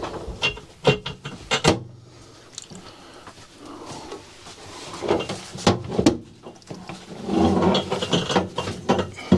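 Scattered knocks, clicks and scraping of hand-fitted mounting hardware: a long screw and a wooden spacer being worked into place while the microwave is mounted. The sounds come in clusters near the start and again toward the end.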